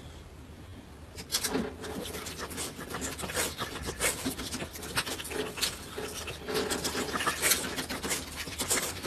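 Dog licking and mouthing a plastic treat packet held through cage bars. From about a second in, quick wet licks run together with crinkling of the packet in an irregular stream.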